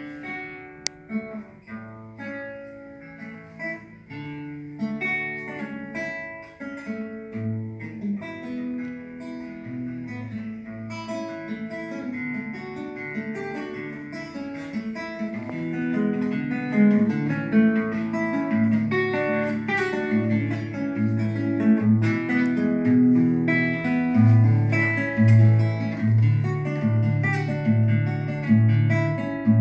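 A classical acoustic guitar played live, picking through chords with a repeating bass line, growing gradually louder.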